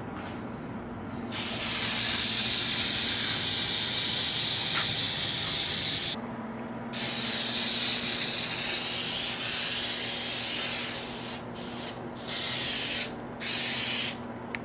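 Aerosol spray adhesive hissing from the can: two long sprays of about five and four seconds, then three short bursts near the end.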